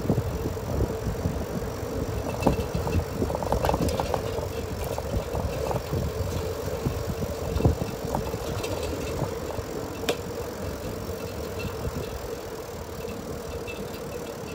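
Bicycle riding along an asphalt street: the rumble and rattle of the bike over the road, with a few sharp clicks from bumps. A faint steady hum runs underneath, and the sound eases a little near the end.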